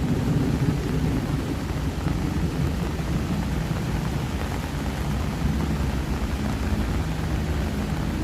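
Steady rain falling, mixed with a low rumble of road traffic; a steady engine hum joins in near the end.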